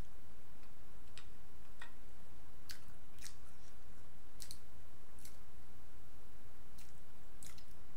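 Mouth sounds of eating: about a dozen irregular, sharp wet clicks and smacks from chewing, over a steady low hum.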